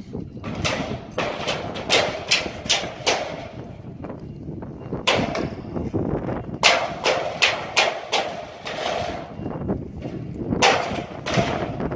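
Hammer blows on metal in quick runs of several strikes, each with a short ring, separated by pauses of a second or more.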